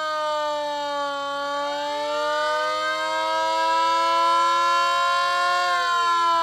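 A Federal Signal Model 28 siren and a mini fire-truck siren sounding together, loud and wailing. One tone holds a slowly drifting pitch while a second winds up from low about a second and a half in, and near the end the pitches begin to fall.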